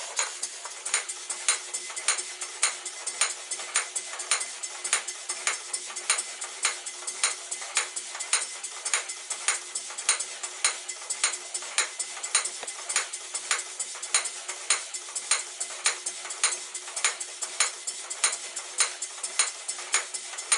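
Stuart Victoria model steam engine running and driving a set of belt-driven model workshop machines: a steady mechanical clatter with a sharp click about twice a second.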